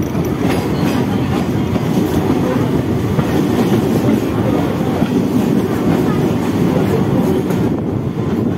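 A Mumbai EMU local train running at speed, heard from the open doorway of a coach: a loud, steady rumble of wheels on the rails with occasional clicks as the wheels cross rail joints and points.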